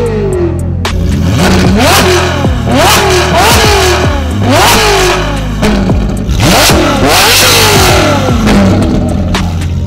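Ferrari 458 Italia's flat-plane V8 with a Novitec aftermarket exhaust, free-revving in neutral: a quick series of about eight sharp throttle blips, each rising fast to high revs and falling back.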